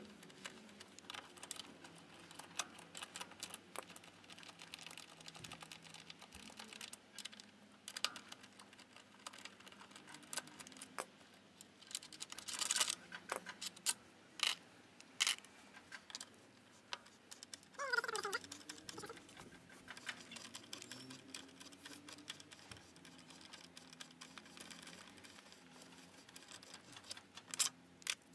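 Faint, irregular metallic clicks and taps of a T-handle socket wrench working loose the exhaust mounting bolts on a Yamaha XMAX 250 scooter, with a few louder knocks near the middle. There is a short squeak about eighteen seconds in.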